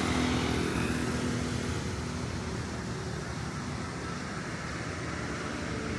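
Steady vehicle engine rumble with a rushing noise over it, easing off slightly toward the end.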